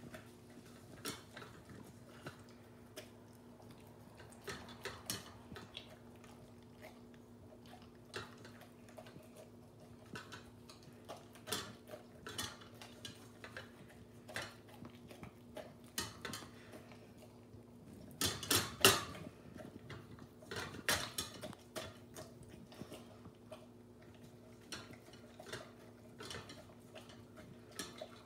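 A standard poodle eating from a stainless steel bowl in a metal stand: irregular clinks and clatter of the bowl as she eats, with a louder flurry of clattering about two-thirds of the way through.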